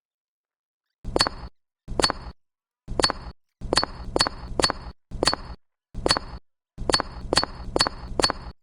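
About a dozen sharp, light clinks of small hard objects being tapped, in uneven groups of one to three.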